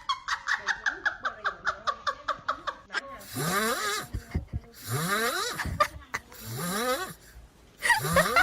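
A quick run of short pitched pulses sliding down in pitch, then four long, snoring-like noisy breaths, each rising in pitch.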